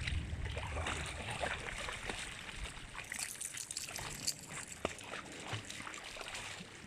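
Faint splashing and trickling water, with scattered small clicks and rustles throughout.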